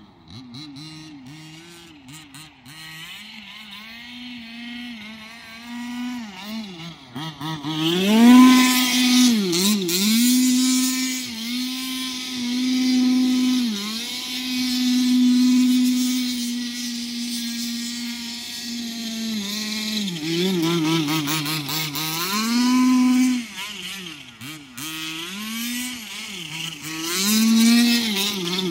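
Losi 5T 1/5-scale RC truck's two-stroke gas engine being driven through snow. It runs low and quiet for the first several seconds, then revs hard from about a third of the way in, its pitch rising and falling again and again with one long stretch held at full revs.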